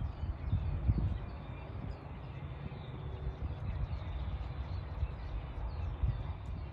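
Wind rumbling and buffeting on the microphone, with faint short bird chirps over it.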